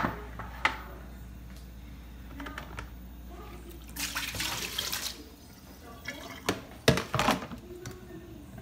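Vinegar soak poured out of a plastic tub into a stainless steel sink, splashing for about a second midway. Before and after it come sharp knocks and clunks of the tub and the ribs against the sink, the loudest a cluster near the end.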